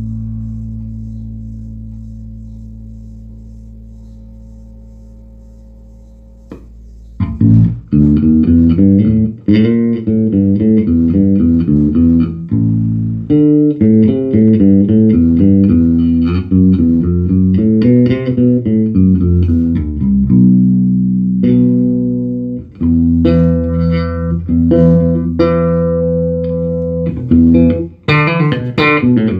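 Electric bass played through a Markbass Little Mark 58R bass amp, back in working order after a power-supply repair. A long held low note dies away over the first several seconds. About seven seconds in, a busy run of bass notes begins, with higher ringing notes near the end.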